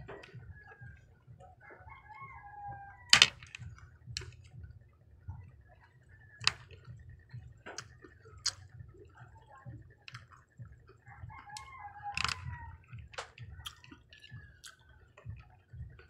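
Wooden chopsticks clicking against peanut M&M candies and the plate in sharp single taps, the loudest about three seconds in. A rooster crows twice in the background, once early and once about two-thirds of the way through, over a faint steady hum.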